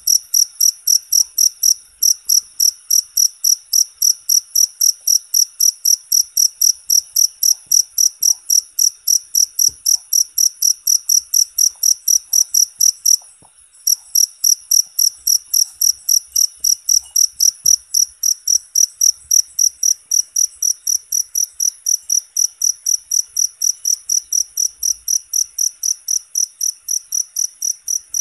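Field cricket chirping steadily in short, high-pitched, evenly spaced chirps, about four a second, with one brief pause about halfway through.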